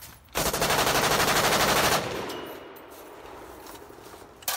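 DSA FAL rifle in 7.62×51 NATO firing one rapid full-auto burst lasting about a second and a half, followed by a fading echo. A single sharp click comes near the end.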